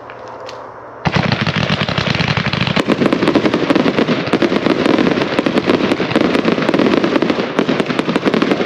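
An 81-shot fireworks cake firing. About a second in, a dense, rapid stream of shots and crackle begins, and it grows heavier a couple of seconds later.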